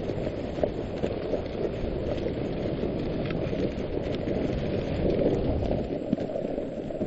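Dog sled moving over a snow trail: a steady rushing noise of the runners sliding on the snow and wind on the microphone, with scattered small knocks.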